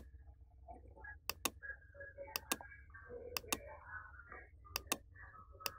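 Computer mouse clicks, each a quick press-and-release pair, repeated about five times, roughly one a second, over a faint low hum.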